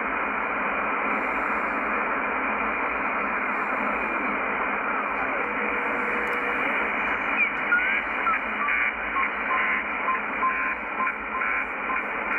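Shortwave band noise, a steady hiss from a Yaesu FTdx10 receiver in upper sideband as it is tuned, with faint whistles of carriers sliding past. From about seven seconds in, a Link 11 NATO data signal comes in as a choppy multitone warble in short repeated bursts.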